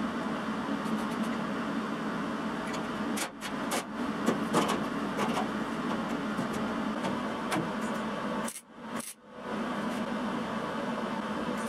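Steady workshop machine noise with a low hum, and a run of light metallic clinks about three to five seconds in. The sound cuts out briefly twice.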